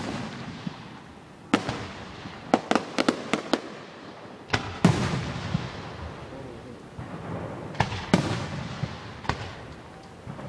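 Aerial firework shells bursting: about a dozen sharp booms at uneven intervals, with a quick string of smaller pops between about two and a half and three and a half seconds in, each boom trailing off briefly.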